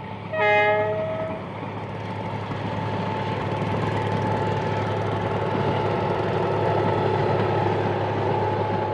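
A train horn sounds once near the start, about a second long, followed by the steady noise of the train running, which slowly grows louder.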